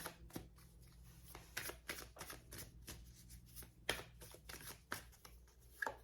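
A tarot deck being shuffled and handled by hand: quick, irregular rustles and flicks of cards.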